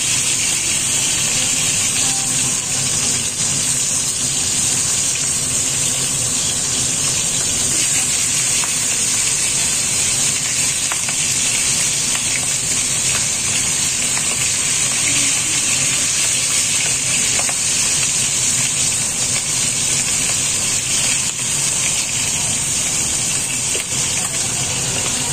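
Fish pieces frying in shallow oil in a nonstick pan, a steady high sizzle, with a spatula now and then scraping and turning them.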